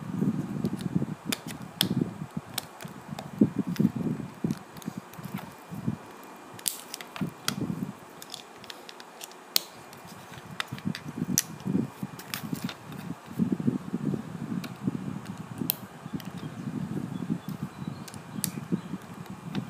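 Plastic LEGO tiles and bricks being handled and pressed onto a plate: sharp clicks scattered throughout, over low rubbing and thumping from the hands working close by.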